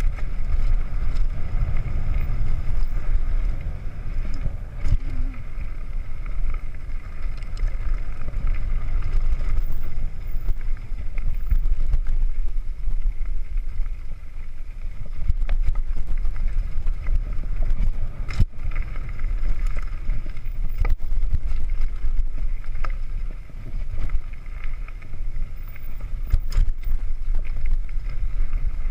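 Downhill mountain bike rolling fast over a dirt trail: wind buffeting the action-camera microphone as a steady rumble, with tyre noise and the rattle and knocks of the bike over bumps, one sharp knock about eighteen seconds in.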